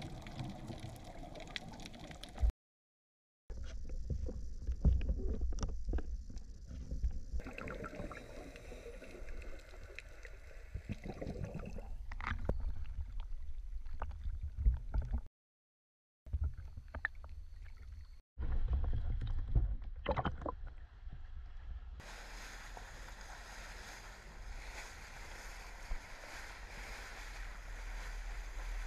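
Unedited camera sound from several diving clips joined by abrupt cuts: underwater water noise with scuba exhaust bubbles, then water sloshing at the surface. For the last several seconds there is steady water and wind noise from a moving boat.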